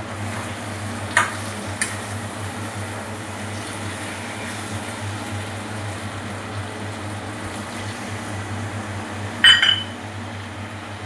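Steady low kitchen hum with a few sharp metal clinks of a utensil against a cooking pot: two light ones in the first two seconds and a louder, ringing clink near the end.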